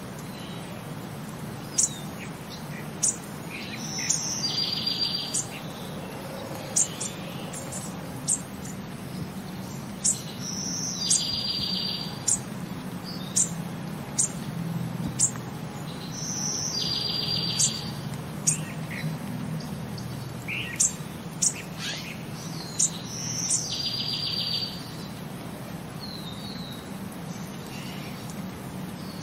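Several birds singing. A buzzy trill about a second long repeats roughly every six seconds, with many quick, sharp high chirps in between, over a steady low background noise.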